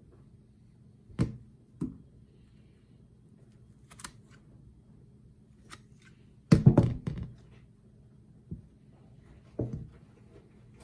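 Scissors snipping and clacking as they cut the tough old roots off a Pachypodium brevicaule caudex: a handful of separate clicks and knocks, with a rapid cluster of snips a little past the middle that is the loudest. The blades don't cut cleanly through the roots.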